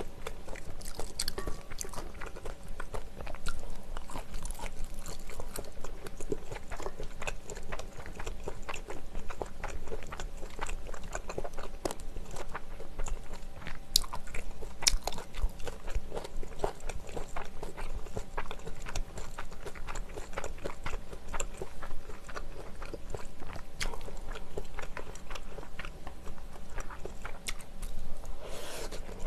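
Close-miked chewing and biting of malaxiangguo, a stir-fried mala dish of scallops, Chinese glass noodles and vegetables, with many small wet clicks and crunches from the mouth.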